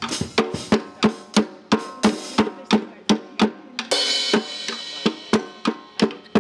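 Drum kit playing a steady beat of about three strikes a second, with a cymbal crash about four seconds in.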